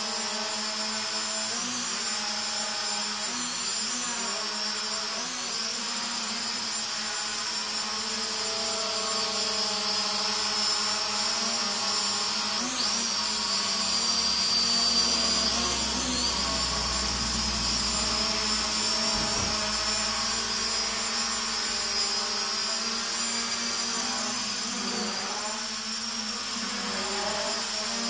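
Hubsan X4 H502E mini quadcopter hovering and manoeuvring, its four motors and propellers giving a steady high whine that wavers and bends in pitch as the motors adjust. It grows louder for a few seconds around the middle.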